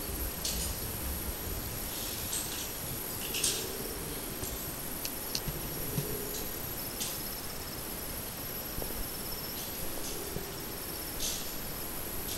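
Insects chirping in short high bursts every second or two over a steady high hiss.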